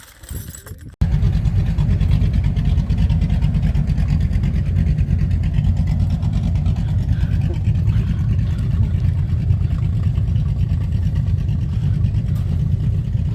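Off-road truck engine running with a steady low rumble, starting abruptly about a second in.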